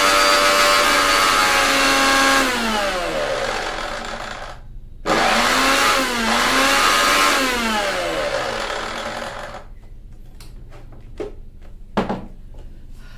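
Havells Genie 500 W mixer grinder running at speed with a high whine. Its pitch falls away as the motor is switched off and coasts down. About five seconds in it starts again suddenly, dips briefly, then winds down to a stop once more. Near the end come a few clicks and knocks, the loudest about twelve seconds in, as the steel jar is taken off the base.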